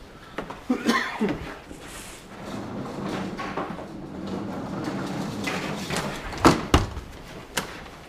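Snow shovel scraping snow across pavement in long strokes, with three sharp knocks near the end as the blade strikes the ground.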